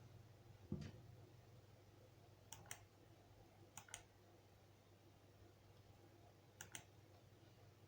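Faint clicking in near silence: three quick pairs of sharp clicks a few seconds apart, after a single dull thump about a second in, over a low steady hum.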